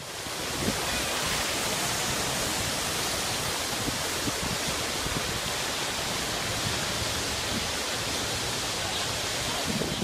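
Fountain jets splashing into a large pool, a steady even rush of water.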